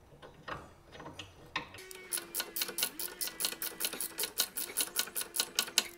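Hand ratchet clicking rapidly, about six clicks a second, as a screw is driven into a highway footpeg mount clamp. The clicking starts about two seconds in, after a few faint ticks.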